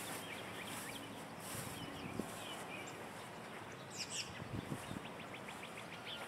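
Birds chirping over a quiet outdoor background: scattered short calls, then a sweeping call about four seconds in followed by a quick trill.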